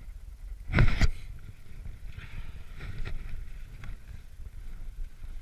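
Wind rumbling on a GoPro Hero3's microphone, with one loud knock about a second in and a few faint scrapes and crunches of trekking poles and boots on snow.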